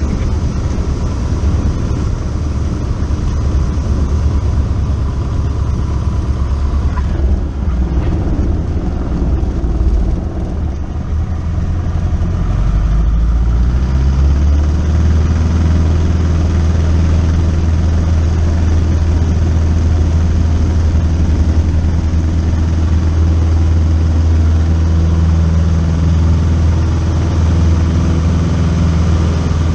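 Single-engine light aircraft's piston engine running at low power as heard from inside the cabin during the rollout after landing. About halfway through its pitch rises a little, then it holds a steady drone.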